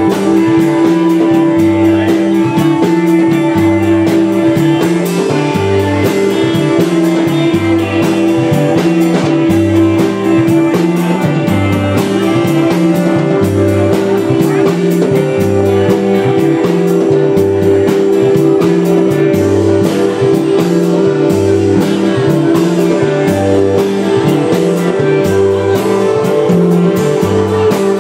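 Live amplified blues-rock band playing: electric guitars over a repeating bass line and a steady drum beat.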